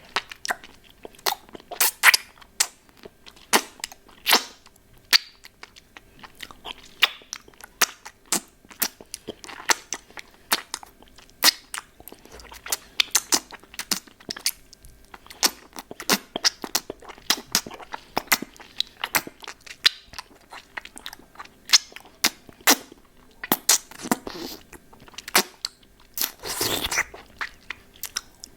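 Close-miked mouth sounds of eating a hard-candy lollipop: irregular sharp clicks and crunches of the candy against the teeth, with a longer, noisier mouth sound near the end.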